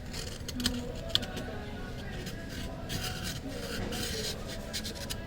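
Small hand tool scraping and rubbing against a smartphone's frame, with several sharp clicks.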